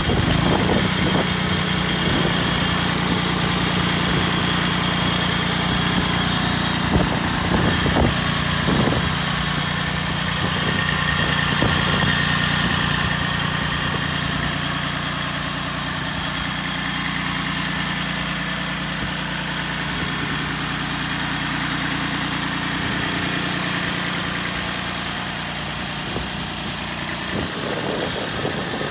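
Bolens Iseki H1502 compact tractor's diesel engine idling steadily.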